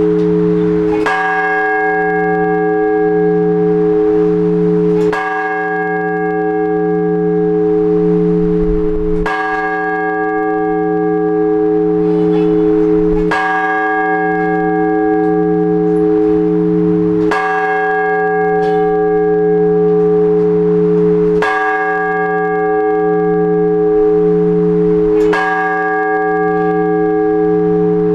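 A large church bell struck slowly and evenly, seven strokes about four seconds apart, its low hum ringing on and pulsing between strokes. This is the blagovest, the measured tolling of a single bell that calls people to the Orthodox all-night vigil.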